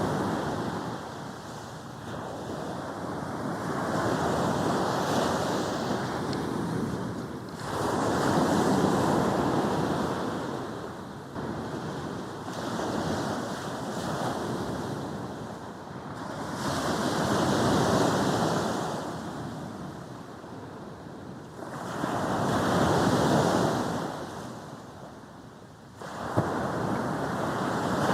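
Sea waves breaking on a beach and washing up the shore, swelling and falling in surges about every four to five seconds.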